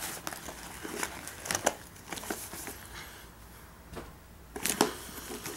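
Food packaging being handled and rummaged through: rustling and crinkling with scattered sharp clicks, loudest in a short cluster about a second and a half in and another near the end.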